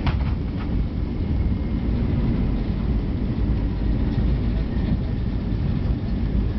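Airbus A320 cabin noise during the landing rollout: a steady low rumble of the engines and the wheels running on the runway, heard from inside the cabin.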